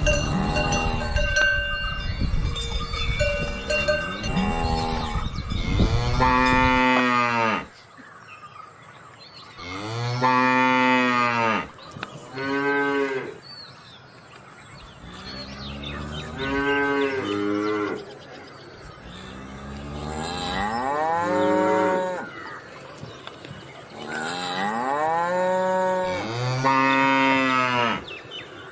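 Cows mooing: a series of long, loud moos that rise and fall in pitch, with short pauses between them. Cowbells ring over a noisy background in the first few seconds.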